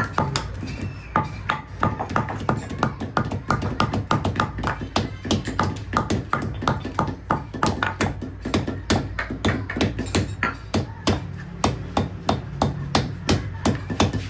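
A small metal cobbler's hammer striking cowhide leather on a stone block, a fast, even run of sharp taps at about three to four a second.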